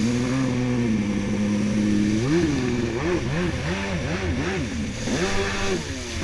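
Stand-up freestyle jet ski's 760 engine running at steady throttle for about two seconds, then revved up and down in quick throttle blips, about two a second.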